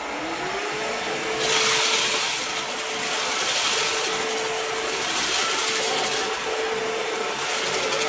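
ILIFE W90 cordless wet-dry upright vacuum in dry mode, its motor whine rising in pitch as it starts, then running steadily as it is pushed over a pile carpet runner picking up crumbs. The hiss of suction grows louder about a second and a half in.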